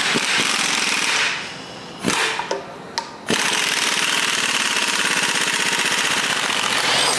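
Half-inch pneumatic impact wrench hammering the forcing screw of a harmonic balancer puller, drawing the balancer off the crankshaft. Two short bursts, then a long unbroken run from about three seconds in.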